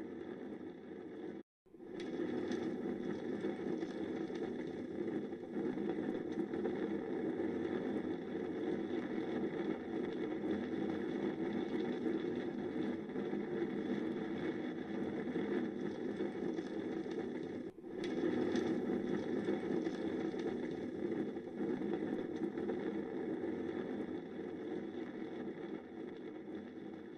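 A bushfire and the strong hot wind driving it through trees: a steady rushing roar, cut off for a moment about one and a half seconds in and dipping briefly again near eighteen seconds.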